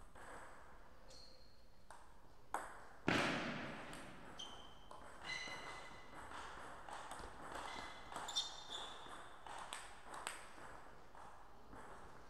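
Table tennis ball clicking off bats and the table with short ringing pings, the hits coming at irregular intervals. There is one loud thud about three seconds in.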